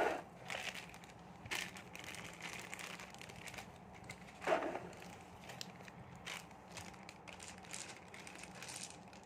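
Small plastic toy parts handled and fitted together: light rustling and scattered small clicks, with two louder knocks, one at the start and one about four and a half seconds in.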